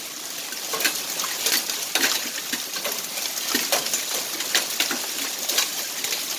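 Hailstones pelting a concrete pad and plastic wheeled trash bins: a dense, irregular patter of sharp clicks and taps over the steady hiss of falling rain.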